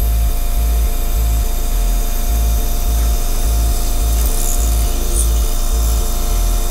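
A CNC beam drill's spindle boring through a steel beam, a steady machine whine, under background music with an evenly pulsing bass beat.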